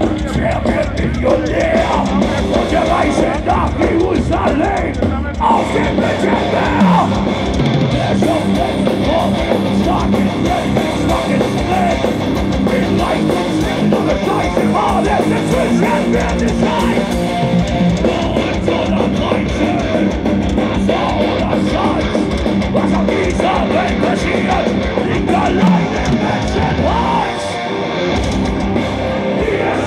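Heavy metal band playing live through a large open-air PA, heard from within the crowd: distorted guitars over fast, dense drumming, with a slight drop in loudness near the end.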